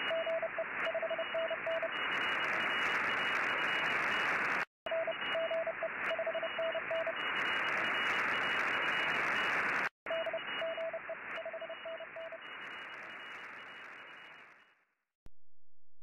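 Shortwave radio receiver hiss with a Morse code signal beeping through it in short and long mid-pitched tones. The audio drops out twice briefly, then fades away near the end.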